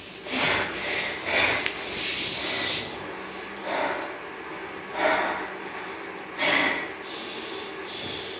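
A woman breathing hard in a series of short, noisy breaths, about one every second or so, with a longer breath about two seconds in.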